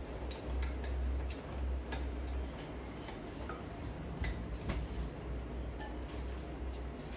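Hand-cranked pasta machine ticking and clicking irregularly as its crank turns the cutting rollers and noodle dough is fed through, over a low steady hum.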